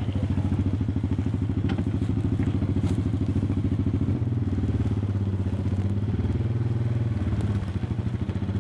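Yamaha side-by-side buggy's engine idling with a steady, fast low pulse. It cuts in suddenly at the start and dips slightly about seven and a half seconds in.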